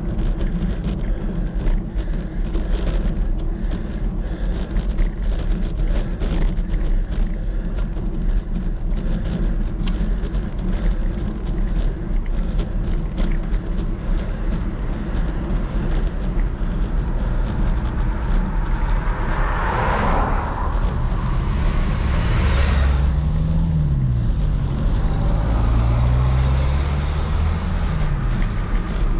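Wind rumbling on the microphone while riding a bicycle, with a motor vehicle passing about two-thirds of the way through: a swell of road noise, then its engine note rising and falling for a few seconds.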